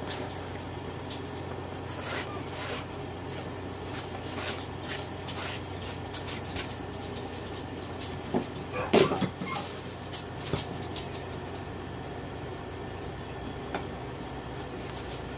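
Light scrapes and taps of hands and a plastic cutting board as shredded cheese and chives are pushed into a glass bowl of flour, with a louder clatter of knocks about nine seconds in. Near the end comes a spatula stirring in the bowl, all over a steady low hum.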